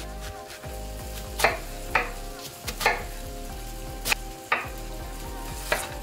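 Chef's knife dicing an onion on a wooden cutting board: about six sharp, irregularly spaced knocks of the blade through the onion onto the board.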